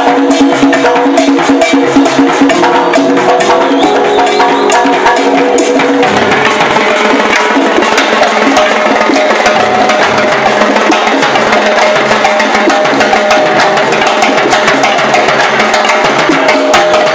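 A live salsa orchestra playing, heard from right beside the percussion section, with rapid timbales and cowbell strokes loudest. The held lower notes drop out about six seconds in, leaving a busier percussion-driven passage.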